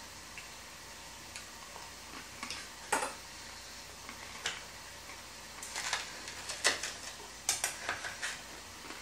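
Knife and fork clinking and scraping on a plate while cutting a pizza: a scatter of short clicks and scrapes, one sharp one about three seconds in and a busier run over the last few seconds.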